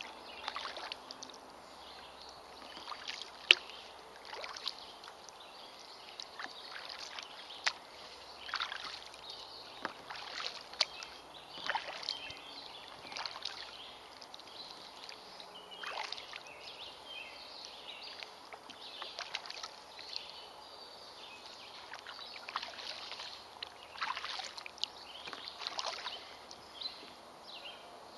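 Kayak paddle strokes dipping and splashing in the water, an irregular wash every one to two seconds, with a sharp knock about three and a half seconds in.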